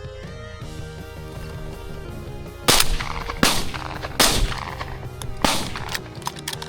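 Four shotgun shots in quick succession, starting about a third of the way in and spaced roughly a second apart, fired at a flushed pheasant, with background guitar music underneath.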